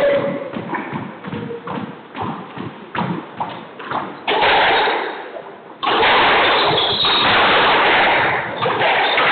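Squash ball being hit and rebounding off the court walls and floor: a run of sharp knocks. About four seconds in a loud, even rushing noise comes in and holds through the rest.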